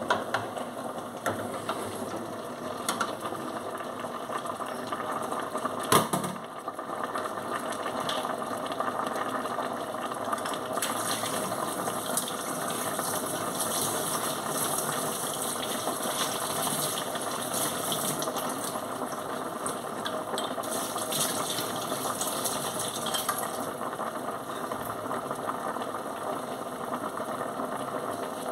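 Fish frying in hot oil: a steady sizzle with fine crackling, and one sharp knock about six seconds in.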